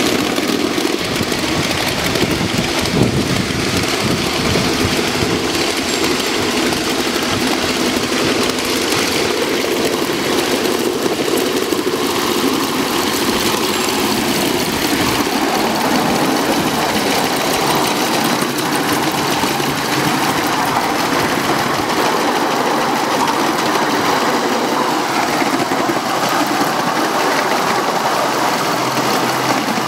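Live steam model of ET&WNC No. 12 'Tweetsie' running steadily along the track, heard from just behind its cab: a continuous loud mix of the locomotive working and its wheels rolling on the rails.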